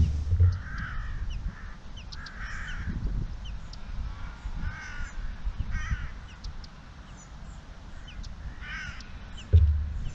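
A large flock of crows cawing, with calls scattered through the whole stretch. Under them a low wind rumble on the microphone, with strong gusts near the start and near the end.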